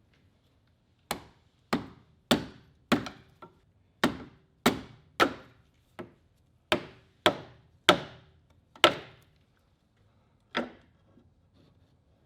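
A hammer striking metal in a series of about a dozen sharp, ringing blows, roughly two a second, then a pause and one last blow near the end.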